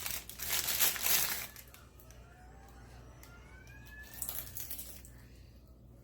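Packaging crinkling as it is handled, loud for the first second and a half, with a shorter, softer rustle about four seconds in.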